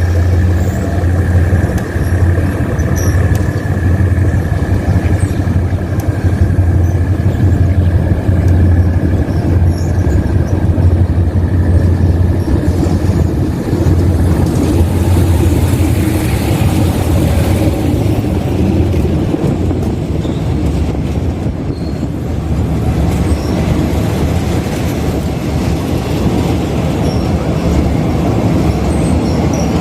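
Diesel-electric locomotive running with a steady low engine drone and a steady high whine that fades out about twelve seconds in. From about fifteen seconds in, a broader rushing rail noise of the moving train takes over.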